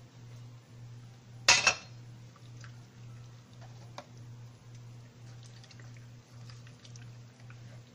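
Kitchen items being handled while salt is rubbed into a raw chicken: a loud, short double clatter about one and a half seconds in, a single sharp click about four seconds in, then faint small ticks, over a steady low hum.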